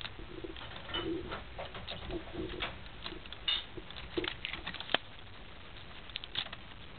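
A cat batting at and biting a thin wand toy on soft bedding: scattered taps, clicks and scratches of paws, claws and teeth on the stick and cloth, with a sharp click about five seconds in. A few short low tones come between the clicks in the first half.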